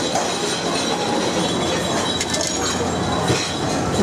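Busy buffet restaurant din: a steady dense hum of noise with occasional sharp clinks of dishes and utensils.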